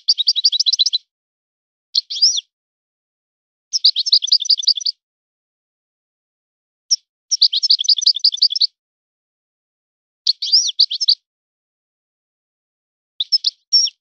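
European goldfinch singing: about six short phrases of rapid, high twittering trills, each broken off by a silent gap of a second or two.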